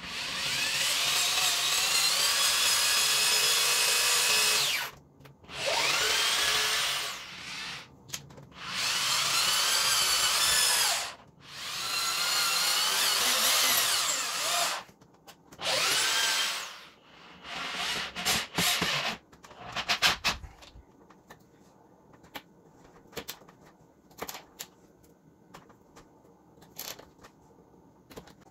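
Orange Black & Decker corded electric drill boring into old wood in about six runs, its motor whine rising as it spins up each time. After about 20 seconds it stops, leaving only light clicks and taps.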